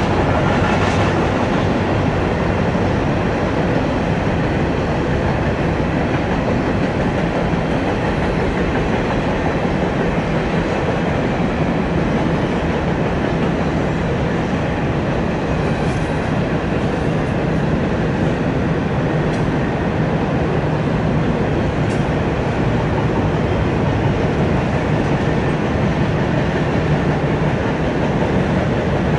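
Double-stack container well cars of a CSX intermodal freight train rolling past: a steady rumble of steel wheels on the rails, with a few faint clicks in the second half.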